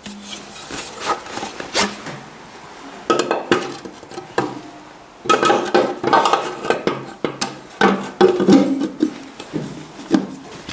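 Metal clanking, knocking and scraping as the Ford 800's rocker cover is worked down over the rocker oil line, a run of sharp knocks, some with a metallic ring, in irregular clusters.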